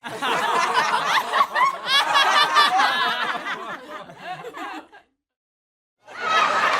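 Studio audience laughter from a canned laugh track: many voices chuckling together, starting abruptly and dying away after about five seconds. After a second of silence, applause starts near the end.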